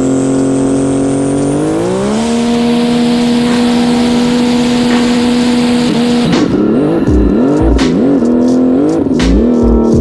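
Built turbocharged three-cylinder Sea-Doo RXP-X jet ski engine running hard at high rpm, its pitch climbing and then holding about two seconds in. From about six seconds the engine speed swings rapidly up and down, with sharp smacks and low thumps, as the ski hops across the water.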